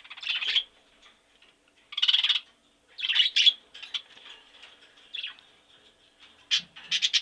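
Bird calling in a series of short, harsh chirps, each about half a second long with pauses between, ending in a quick run of rapid chirps near the end.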